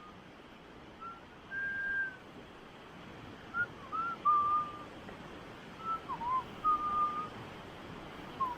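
A person whistling a slow, unhurried tune: about a dozen clear single notes, some held and some short with little slides between them.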